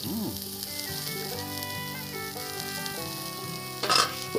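Mutton curry sizzling and bubbling in a pot on the stove, over background music with held notes. A short, loud clatter comes about four seconds in, as the lid is put on the pot.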